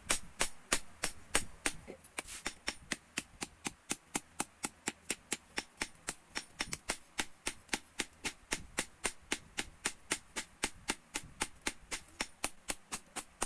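Rapid, regular hammer blows on steel on an anvil, about four to five strikes a second: a blacksmith forging a knife from old spring steel.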